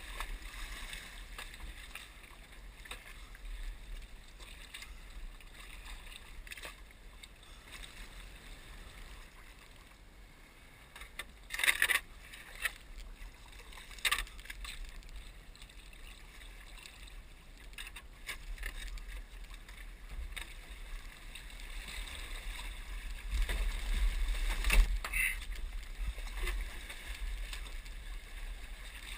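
Kayak on the water: a steady wash of water lapping and paddle splashes, broken by a few sharp knocks, a pair near the middle and one near the end.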